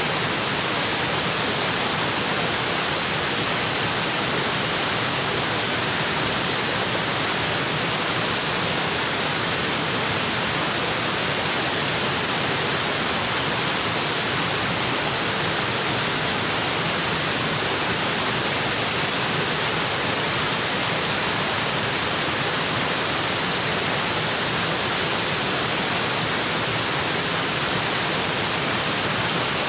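Tropical waterfall pouring onto rocks: a steady, unbroken rush of falling water.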